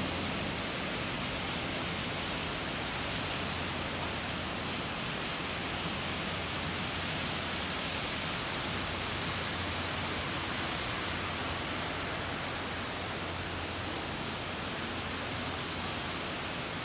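Steady heavy rain falling, an even hiss that does not change.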